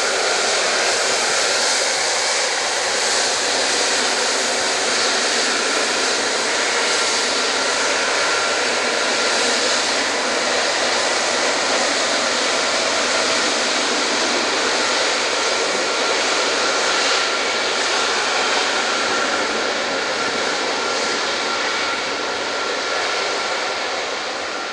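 Airbus A330-243's two Rolls-Royce Trent 700 turbofans at taxi power: a steady jet rush with a thin, even whine on top, easing slightly near the end.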